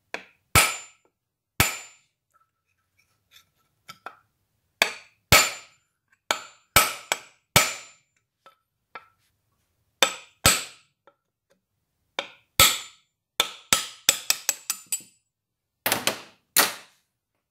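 Hammer tapping, each strike sharp with a brief metallic ring, knocking the round metal sight-ring out of an old William Hunt spirit level's wooden body. About two dozen irregular taps, mostly single, with a quick run of strikes about two-thirds of the way through.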